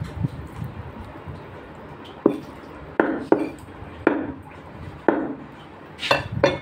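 Butcher's cleaver chopping chicken: about seven sharp, irregularly spaced chops, starting about two seconds in, each with a brief ring.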